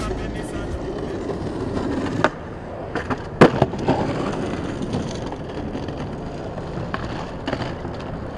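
Skateboard wheels rolling over stone paving. About three and a half seconds in comes one sharp, loud clack of the board, with a couple of smaller knocks right after it, then more rolling with a few light clicks.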